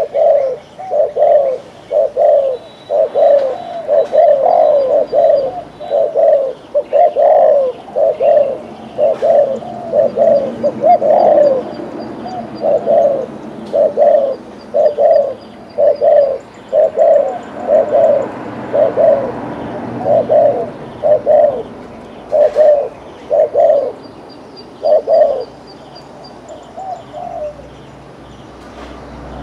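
Caged spotted dove giving its rapid bowing coo (gù), a long run of short, evenly spaced coos at about one and a half a second, stopping a few seconds before the end.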